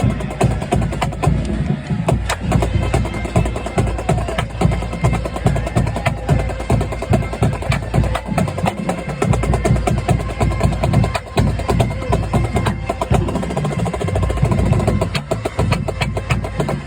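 Marching band drumline playing a fast cadence: rapid snare strokes over steady bass drum hits.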